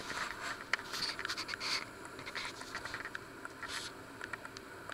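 Scratchy handling noises with scattered small clicks. There are a few louder scrapes in the first two seconds and another just before the four-second mark.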